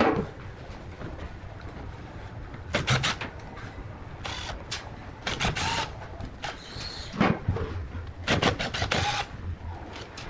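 Irregular groups of sharp clicks and clatters, as of tools or parts being handled, over a low steady rumble.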